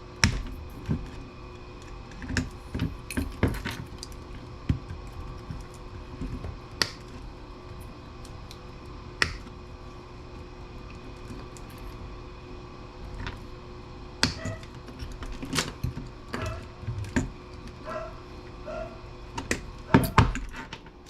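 Irregular sharp clicks and clanks of metal parts and tools being handled while a PC power supply is taken apart for scrap, over a steady faint hum.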